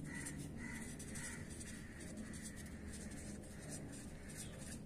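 Felt-tip marker writing on paper: faint scratchy strokes as letters are written.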